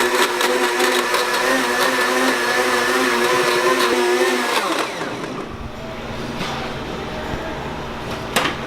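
Countertop blender motor running steadily while blending a salad dressing, then switched off about four and a half seconds in, its pitch dropping as it spins down. A short knock near the end.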